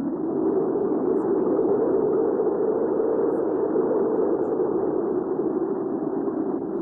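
Recorded hurricane wind ambience: a steady, low rushing wind that swells a little in the middle and eases off again.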